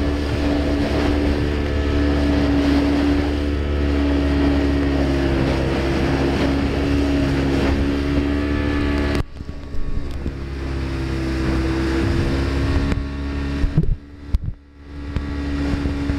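Motorboat engine running steadily at speed, under a rush of wind and water noise. About nine seconds in the rushing drops away suddenly while the engine carries on, and a few knocks come near the end.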